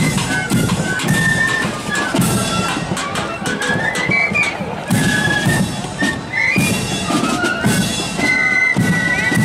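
Marching flute band playing a tune: flutes carry a high melody over a drum beat of sharp snare strokes and bass drum thumps.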